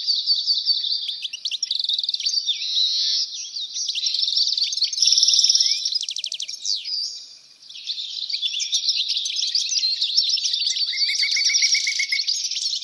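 Songbirds singing, a dense chorus of rapid chirps and trills that thins briefly about seven seconds in.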